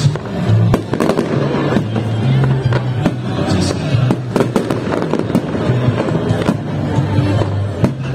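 Aerial firework shells bursting in quick succession: sharp bangs about once a second over a continuous dense crackling from the stars and crackle effects.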